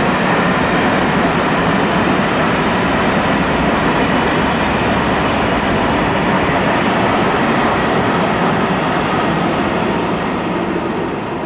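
Freight train of Eas open wagons rolling past, a steady loud rumble and rattle of wheels on rail that eases off near the end.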